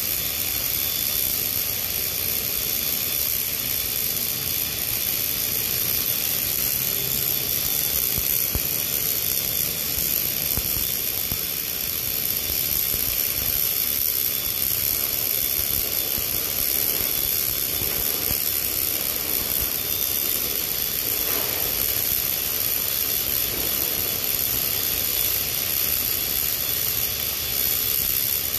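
RMD (Miller's regulated short-circuit MIG) welding arc on 316L stainless steel pipe, running without a break as a steady hiss.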